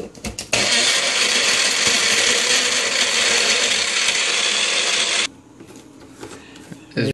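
A single-serve bullet blender running at full speed for about five seconds, blending a protein shake, then cutting off abruptly. The plastic cup clicks against the base just before it starts. Afterwards the cup is handled, with a short knock near the end.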